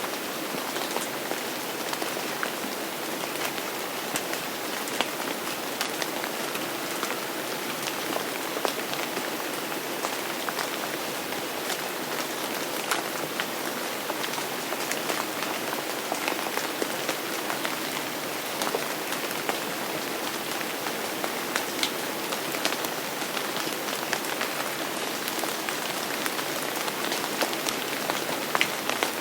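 Steady rain falling and pattering on a surface, with many individual drops ticking sharply throughout.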